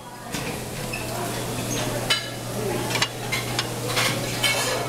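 Buffet dining-room ambience: a steady hiss of room noise and distant chatter, with plates and cutlery clinking a few times.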